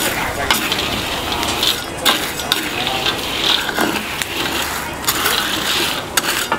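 Metal ladle stirring and scraping heated coarse salt in a large wok: a steady gritty rattle of salt grains, with sharp clicks of metal on metal.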